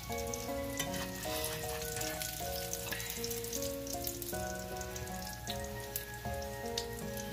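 Vegetable fritters sizzling in shallow oil in a cast-iron skillet, a steady crackle with frequent small pops. A background music melody plays over it.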